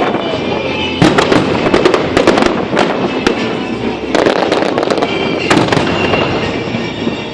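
Aerial fireworks going off in a dense, continuous run of bangs and crackling.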